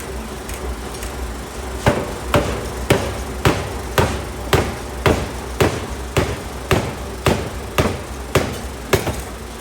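750 kg pneumatic forging hammer striking a large steel workpiece in an even run of blows, about two a second, starting about two seconds in, over a steady low machine hum.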